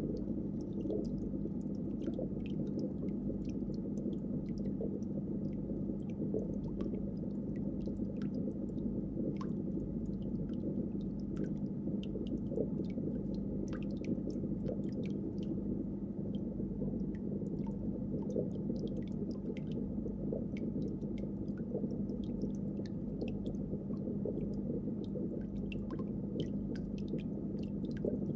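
Steady low hum with water bubbling and many small scattered clicks, the running sound of an aquarium's pumps and filtration.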